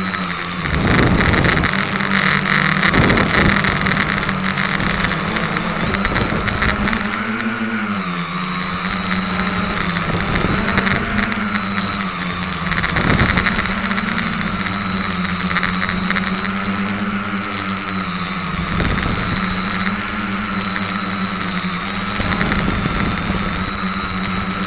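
SK450KK2 quadcopter's four brushless motors and propellers whirring, heard from the camera on board the craft. The pitch rises and dips with throttle changes, most clearly about eight and thirteen seconds in, with a few short bursts of low rushing air on the microphone.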